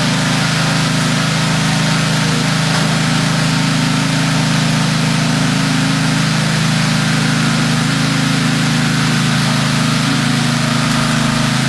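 An engine running steadily at a constant pitch, with an even low hum throughout.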